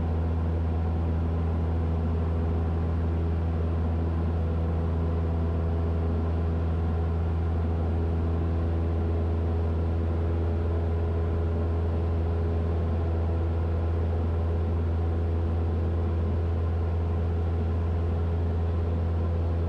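Cessna 172's piston engine and propeller droning steadily in flight, heard inside the cabin: a constant low hum with steady higher tones above it, not changing in pitch or level.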